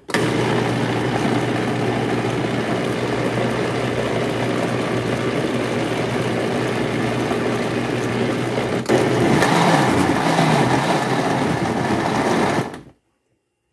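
Electric blender running at full power, grinding pineapple peel, parsley and mint leaves in liquid. It starts at once with a steady hum, dips for a moment about nine seconds in, comes back slightly louder, and cuts off suddenly about a second before the end.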